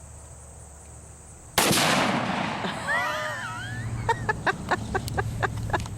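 A single gunshot, and the gallon jug of rotten milk bursting with it, about a second and a half in: a sharp crack with a spraying noise trailing for about a second. Excited voices follow, ending in a quick run of short bursts like laughter.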